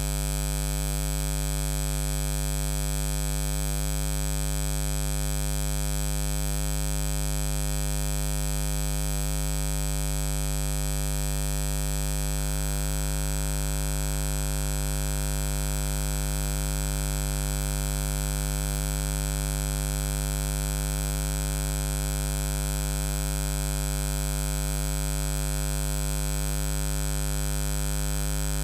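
Steady electrical buzz: a low mains hum with a stack of fixed overtones over a constant hiss, unchanging throughout.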